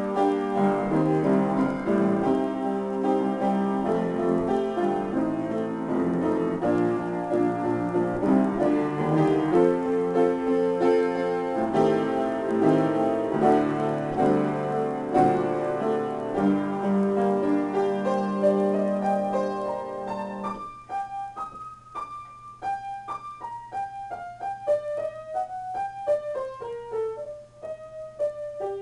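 Solo piano improvisation, full chords over a low bass line. About two-thirds of the way through it thins suddenly to a quieter melody of single high notes that steps downward.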